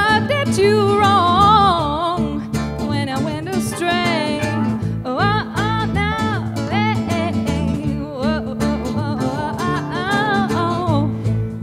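A band playing live: guitar accompaniment with a wavering, sliding melody line on top and no sung words.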